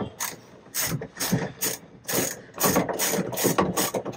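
Hand ratchet wrench clicking in quick repeated strokes, about three clicks a second, as a loose bolt on the pickup is tightened.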